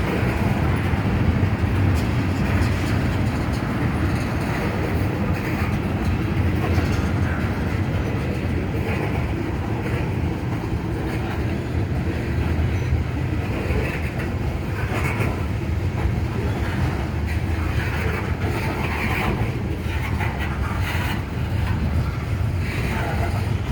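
CSX mixed freight train rolling past: a steady rumble of wheels on rail with faint irregular clicks.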